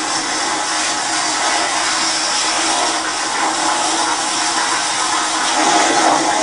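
Tsunami water surging through a port, a steady loud rushing noise.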